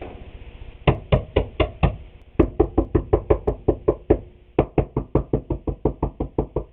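Rapid knocking, about four to five blows a second, in three runs with short pauses: the glued-up wooden boards being struck repeatedly with something other than a hammer.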